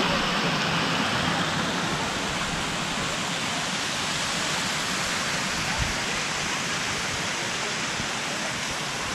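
Water spilling over a small concrete check dam and rushing down its stepped spillway: a steady rush of falling water.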